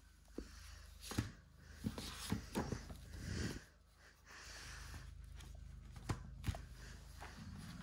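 A hardcover book being handled and opened by hand: its cover and pages rustling, with a few soft taps and knocks. A low steady hum comes in about halfway.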